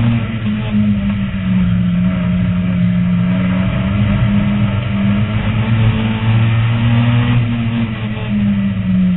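Lightning Rod race car's engine heard from inside the cockpit at racing speed, loud and running hard, its pitch climbing and dropping every second or two as the driver accelerates and lifts off around the track, over steady road and wind noise.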